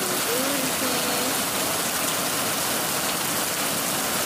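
Heavy rain falling steadily, a constant dense hiss.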